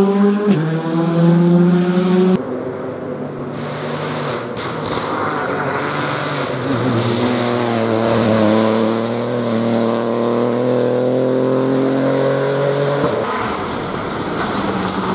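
Rally car engines at full throttle on a special stage. First a car accelerating hard with a gear change about half a second in. After a cut, another rally car's engine rises steadily in pitch as it accelerates past, until it cuts off near the end.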